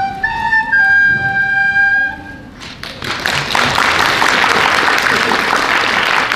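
Two recorders play the last notes of a tune in unison, ending on a held note about two seconds in. After a short pause, an audience breaks into steady applause.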